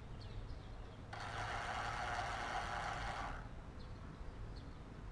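A heliostat's small electric gear motor runs for a little over two seconds, driving the mirror to a new aim. It is a steady whir that starts and stops abruptly.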